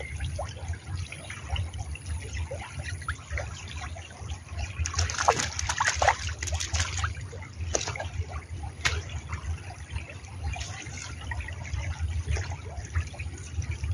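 Shallow river water trickling, with a burst of splashing about five to seven seconds in, and another about nine seconds in, as a hooked tilapia thrashes in the shallows at the water's edge while being landed.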